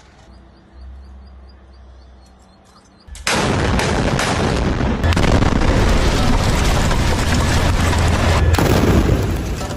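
A low rumble, then about three seconds in a tank's main gun fires with a sudden, very loud blast. Loud gunfire and blast noise keeps on for about six seconds before fading near the end.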